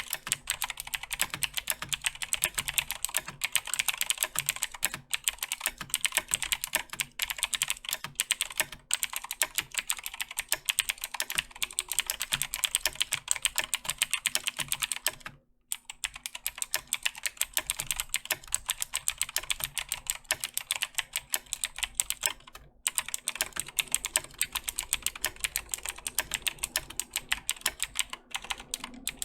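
Fast, continuous typing on a Razer BlackWidow 2014 Tournament Edition mechanical keyboard with clicky Razer Green switches, each keypress a sharp click. There is a short pause about halfway through.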